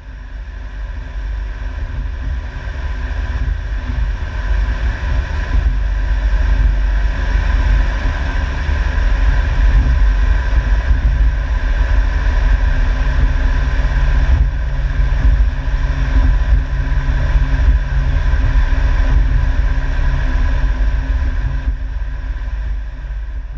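John Deere 6430 Premium tractor heard from inside its cab while driving on the road: a steady engine drone with a higher whine over it. It swells in over the first few seconds and fades out near the end.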